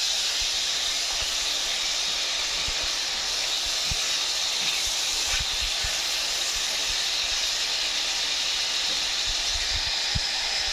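Cubed beef sizzling in hot oil in a pan, a steady hiss, with a few soft knocks as a spatula stirs the pieces.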